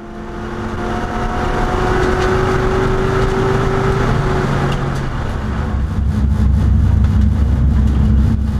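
Holden LS3 V8 in a Nissan Skyline R32 race car, heard from inside the stripped cabin. The engine note climbs gradually for about four seconds, then drops back and runs steadier and heavier.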